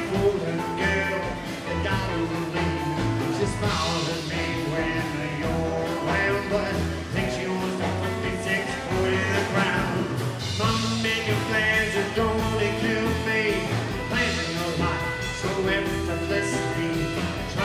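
Live rockabilly band playing, with strummed acoustic guitar and a drum kit keeping a steady beat, and a man singing.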